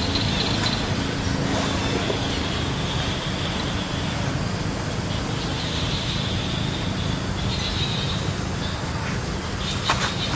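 Steady background rumble and hiss with a low hum, and a faint high buzzing that comes and goes; two short clicks near the end.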